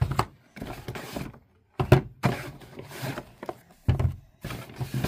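Small cardboard boxes being set down on a table one after another: several light thunks with rustling between them.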